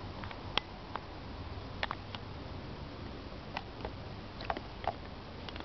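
Scattered light clicks and taps at irregular intervals over a steady hiss.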